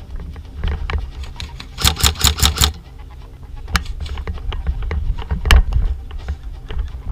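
Airsoft electric rifle firing: a quick string of about five shots about two seconds in, then single shots near four and five and a half seconds, the last the loudest, over low rumbling handling noise.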